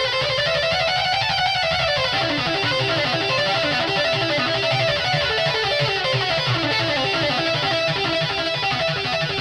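Background music led by guitar with a steady beat.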